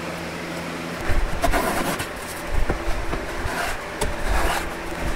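Hand-tool work on a wooden board clamped in a bench vise: rough scraping strokes about once a second, starting about a second in, over the steady hum of a box fan.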